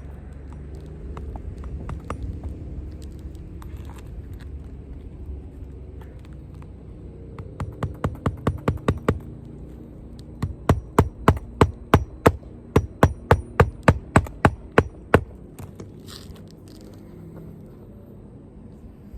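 Hammer driving a roofing nail into a shingle roof: a quick run of about ten light taps a little before halfway, then about fifteen louder, evenly spaced blows over some five seconds.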